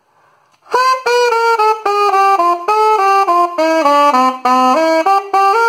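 Saxophone playing a quick melodic run of short separate notes, starting just under a second in; the line steps downward through the middle and climbs again near the end.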